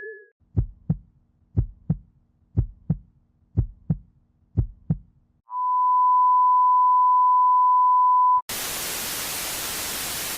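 Sound effect sequence: a heartbeat in five double beats about once a second, then a steady high beep held for about three seconds like a heart monitor's flatline, then a sudden cut to loud static hiss.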